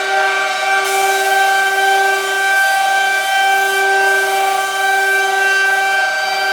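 Spindle motors of a six-head CNC carving machine running with a steady high-pitched whine rich in overtones. A hiss joins in about a second in and fades near the end.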